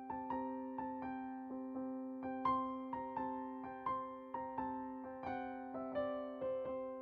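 Background music: a keyboard, electric-piano-like, playing a slow, gentle melody of struck notes that ring and fade, over a steady held low note.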